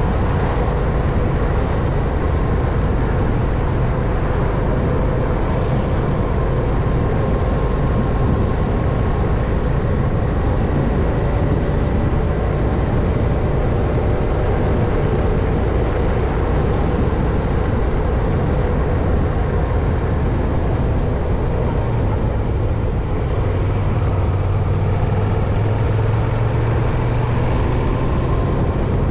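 Steady road noise from a moving bicycle, with a deeper hum swelling near the end.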